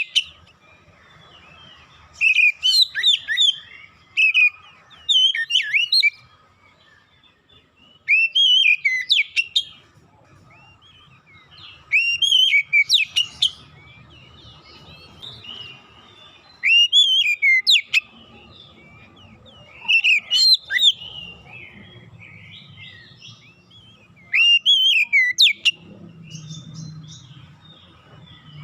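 Oriental magpie-robin singing: short, loud phrases of whistled notes that sweep sharply up and down, repeated about every four seconds with brief pauses between.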